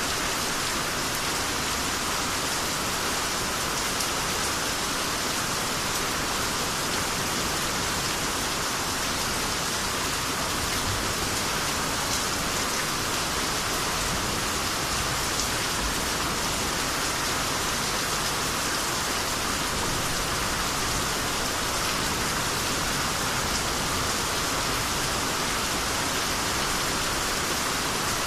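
Steady rainy-season rain falling and pattering on surfaces, an even hiss with scattered drop ticks and no thunder.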